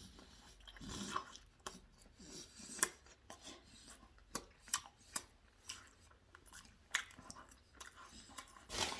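A person chewing a mouthful of chicken sandwich close to the microphone: faint wet smacks and scattered sharp mouth clicks.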